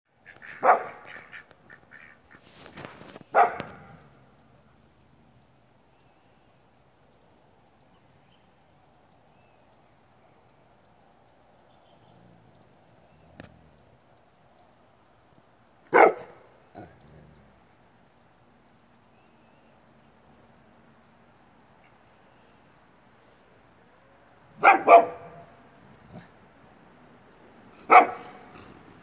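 Great Pyrenees dogs barking: single loud barks separated by long pauses, with two barks in quick succession near the end.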